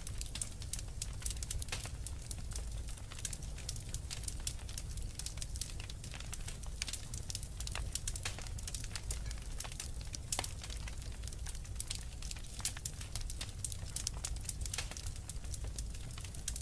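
Fireplace fire crackling: a dense, irregular run of sharp pops and snaps over a steady low rumble.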